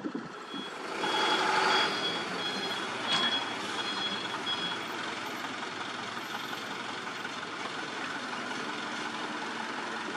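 A vehicle's reversing alarm gives about six short beeps, a little under two a second, over the steady running of a Mitsubishi Fuso dump truck's engine. A louder rush of noise comes about a second in, as the beeps begin.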